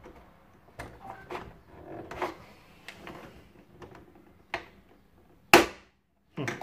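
Plastic parts of a Philips Marathon Ultimate vacuum cleaner's housing clicking and knocking as a thin tool pries at the clips holding the hose-inlet piece, a handful of separate ticks and taps. About five and a half seconds in comes one loud sharp crack of plastic.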